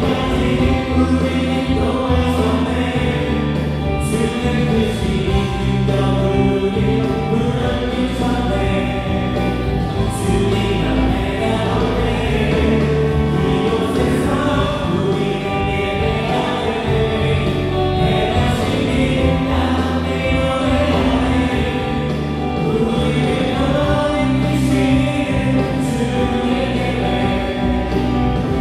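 Church worship band playing a praise song live: electric guitar, bass guitar, keyboards and drums, with a group of voices singing along.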